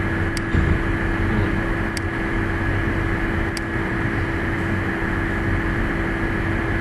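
Steady electrical hum and hiss of the recording's background noise, with three faint mouse clicks spaced about a second and a half apart in the first half.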